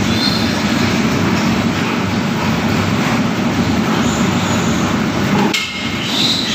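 Many piglets squealing and screaming together in a loud, continuous din, dipping briefly about five and a half seconds in.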